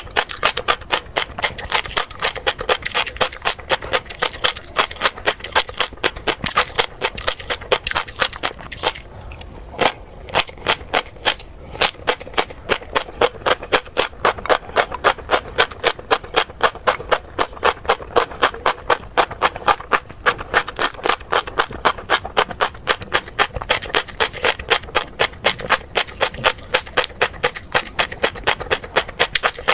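Close-miked chewing of crunchy tobiko (flying fish roe): dense crackling pops and crunches in a steady rhythm of about three chews a second, with a brief lull about nine seconds in.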